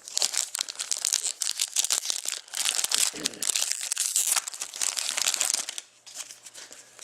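Foil trading-card pack wrapper crinkling and being torn open by hand, a dense crackle that dies away about six seconds in, leaving a few light clicks.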